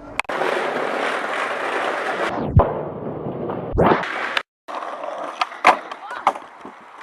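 Skateboard wheels rolling steadily over pavement. The sound then sweeps down in pitch and back up as the footage is slowed and sped again. After a brief dropout come several sharp clacks of the board.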